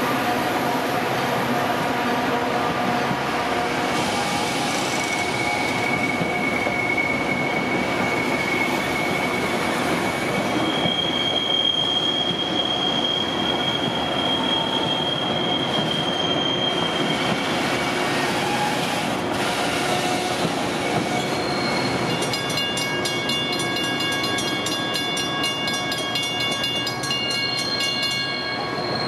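Steel wheels of Metra gallery-type bilevel commuter coaches squealing against the rails as the train rolls steadily through a tight curve, over a continuous rumble of wheels on track. The squeal comes as high sustained tones, one after another, with several ringing together near the end.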